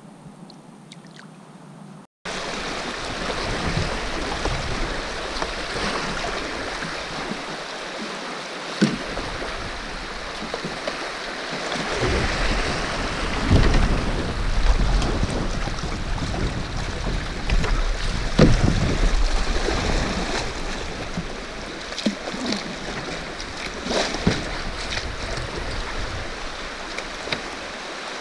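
River rapids rushing around a kayak, starting abruptly about two seconds in, with wind rumbling on the microphone in the middle stretch and occasional sharp knocks and splashes from the paddle.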